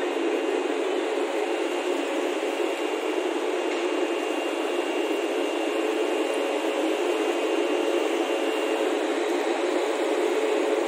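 Steady mechanical hum and hiss of a locomotive standing close by, running without change as the WAP-7 electric locomotive closes up to the coaches for coupling; a faint high whine in it fades out near the end.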